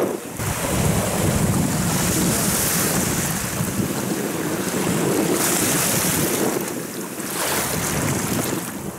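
Strong storm wind buffeting the microphone in gusts, with small waves splashing and washing onto a pebble shore.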